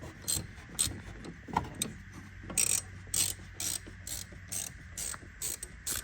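Star (Torx) wrench turning out the small screws that hold a headlight DRL board, giving a run of short ratchet-like clicks about twice a second, somewhat uneven.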